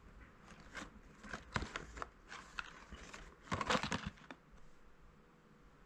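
A paperboard snack box handled and turned over in the hands, its cardboard rustling and clicking in irregular bursts, loudest about three and a half seconds in.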